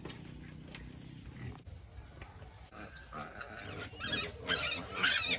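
Native black pigs squealing in a string of rough, high-pitched cries that start about three seconds in and get louder toward the end. A faint steady high whine runs under the first half.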